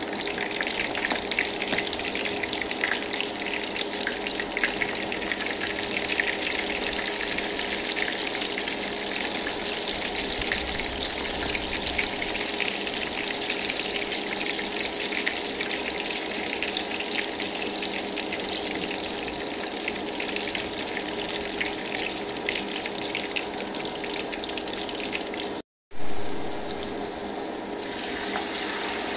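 Battered tép rong (small shrimp) fritters deep-frying in hot oil, a steady crackling sizzle. After a brief break near the end, the sizzle grows brighter and louder as fresh batter is ladled into the oil.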